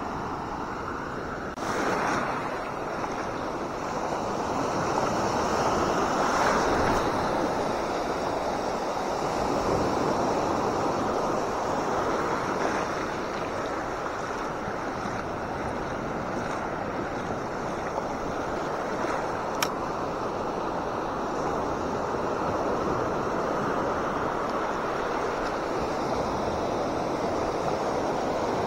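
Ocean surf breaking and washing up the shallows of a sandy beach, rising and falling in swells as each wave comes in. A single sharp click sounds about two-thirds of the way through.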